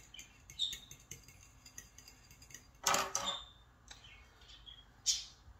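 A metal fork clinking against a ceramic bowl as eggs are beaten, in quick light ticks over the first second. Then two louder brief sounds, about three and five seconds in.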